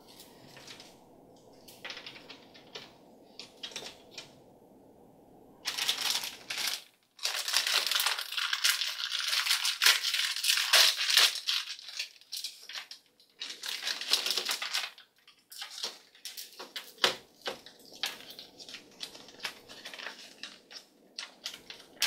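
Crinkling of a plastic toy blind bag being handled and opened, loudest in a dense stretch from about six to fifteen seconds in, then lighter rustles and scattered small clicks.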